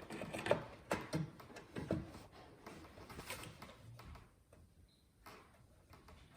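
Light clicks and knocks of hardware being handled as a Wi-Fi/Bluetooth expansion card is fitted into a PC case. They are busiest in the first couple of seconds and thin out to a few scattered clicks.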